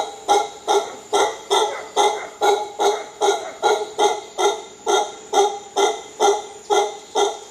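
Mantled howler monkeys howling: an unbroken run of short, pitched calls, about two and a half per second, each starting sharply and fading.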